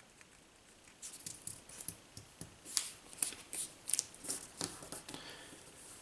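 A sheet of plain white paper being folded and creased by hand: a run of short, irregular rustles and crinkles starting about a second in.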